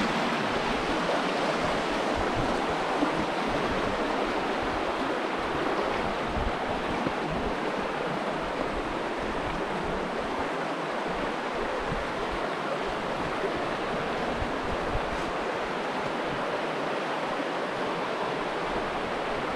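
The River Wye rushing over rocks, a steady, even rush of flowing water.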